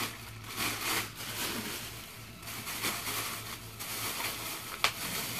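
Plastic bag and cloth wrapping rustling and rubbing in irregular bursts as they are pulled off a hockey mask, with one sharp click near the end.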